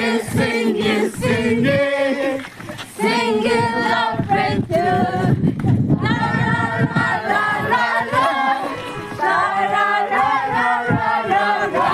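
A group of voices singing together without instruments, in short phrases with brief pauses between them.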